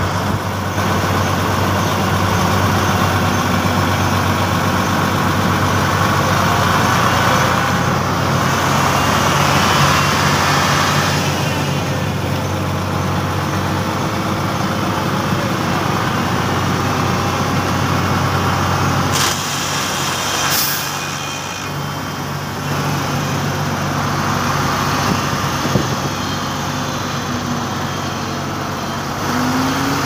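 Diesel engines of an asphalt paver and a dump truck running steadily at close range while the truck feeds the paver, with a couple of brief hisses a little past the middle.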